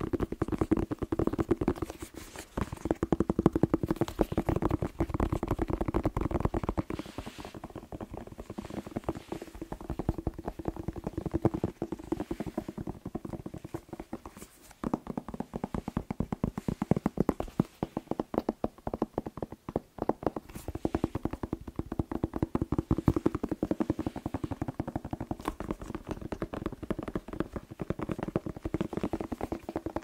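Fingers tapping rapidly on a whole red bell pepper right at the microphone, a dense, fast patter of light taps over a steady low note, with a short break about halfway through.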